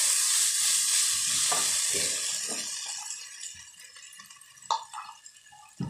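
Yellow noodles with pork mince sizzling in a hot nonstick wok while two spatulas stir and scrape them. The sizzle fades away over the second half, and two short knocks come near the end.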